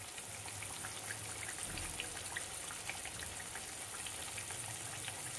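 Sugar syrup boiling in a steel pot: a steady fizz with many small irregular pops as the bubbles burst. The syrup has been cooked to one-thread consistency.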